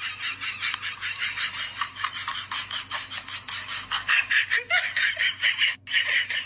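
A person laughing in quick, breathy pulses, about five a second, held up without pause.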